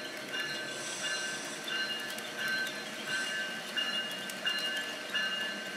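HO scale model freight train rolling past on curved track: small wheels clicking over the rail joints, with a high whine that comes and goes in short pulses about every 0.7 seconds.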